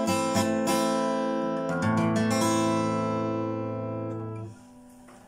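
Acoustic guitar strumming the closing chords of a song: a few strokes, then a final chord struck just before two seconds in and left to ring until it is damped suddenly about four and a half seconds in.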